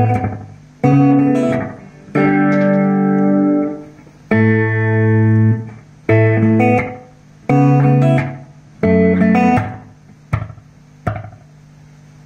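Guitar played through a TOA EMX-10 echo mixer, strumming chords about every one and a half seconds, each ringing out and fading. Near the end come two shorter, quieter hits.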